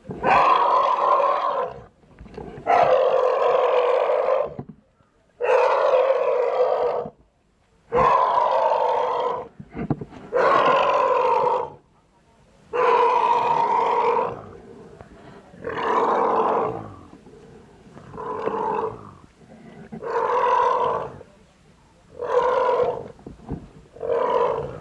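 Elephant calf calling over and over: about eleven loud bellows that each hold a steady pitch for one to two seconds, with short pauses between them. The later calls are shorter.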